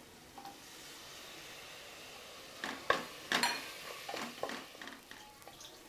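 Sliced tomatoes sizzling softly in hot oil in an aluminium pressure cooker. From about two and a half seconds in, a wooden spatula stirs them, with several sharp knocks against the pot.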